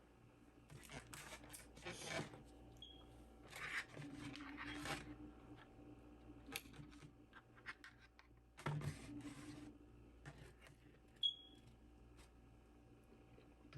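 Faint scattered scrapes, rustles and clicks of food being handled and eaten, in short bursts with pauses between.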